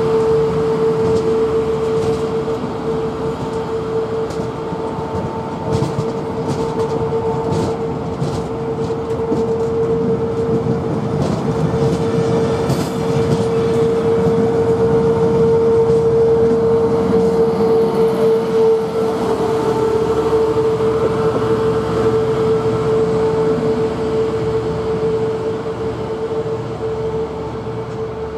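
Network Rail Test Train coaches rolling past at low speed, the wheels rumbling and clicking over the rail joints, with a steady high-pitched whine throughout. The train noise fades in the last few seconds as it draws away.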